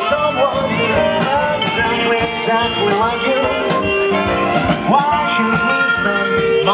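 Live swing jazz band playing an up-tempo tune, with saxophone, guitar and drums over a steady beat.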